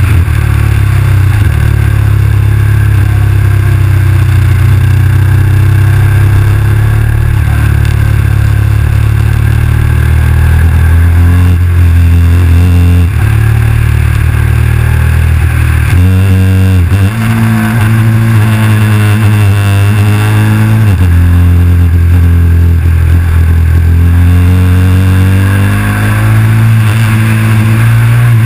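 KTM 990 SMR motorcycle's V-twin engine under way, its revs rising and falling several times in the second half as it accelerates and eases off, under a heavy steady rumble of wind buffeting the mounted camera's microphone.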